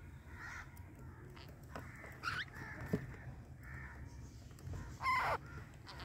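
Pet parrots calling: a few short, harsh calls scattered through, the loudest a call falling in pitch about five seconds in.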